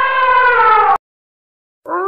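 An elephant trumpeting: a loud, held call that sags slightly in pitch, cut off abruptly about a second in. After a short silence a wolf's howl starts near the end, rising in pitch.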